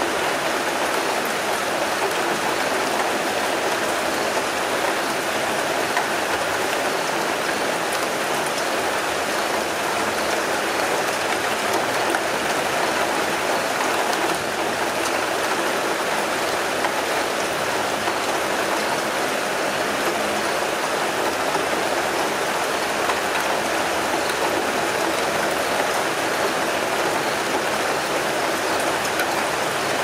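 Steady rainfall, an even unbroken hiss of falling rain with no change in strength.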